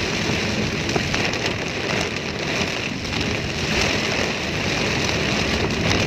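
Heavy rain falling on a car's windshield and roof, heard from inside the moving car: a steady, dense hiss.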